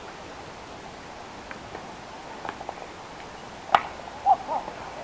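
A single sharp crack about three-quarters of the way through, followed by distant voices calling out.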